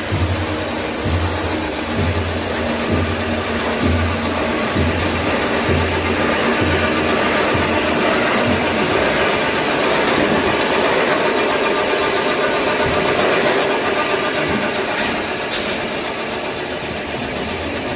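Veneer peeling line machinery running: a steady mechanical noise, with a low hum pulsing about once a second through the first half.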